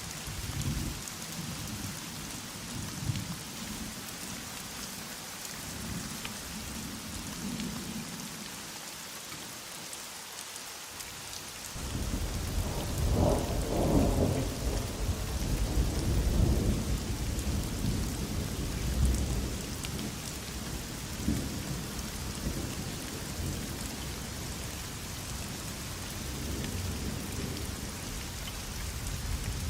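Steady heavy rain hissing, with thunder: soft low rumbles early on, then a deep roll of thunder that starts suddenly about twelve seconds in, is loudest for a few seconds, and rumbles on more softly.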